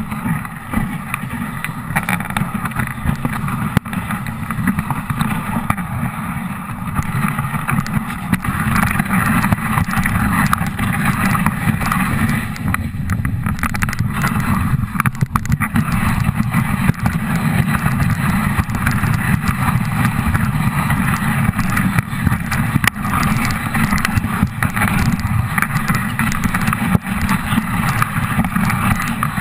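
Dog sled under way: a steady low rumble and hiss of the runners sliding over snow, with wind on the microphone. It stays even throughout.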